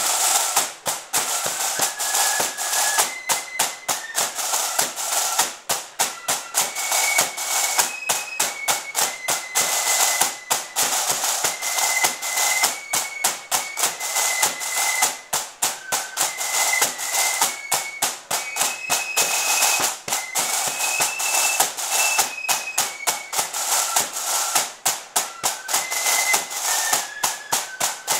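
Marching flute band playing a tune: several snare drums beat rapid, continuous strokes under flutes carrying a melody that moves in steps.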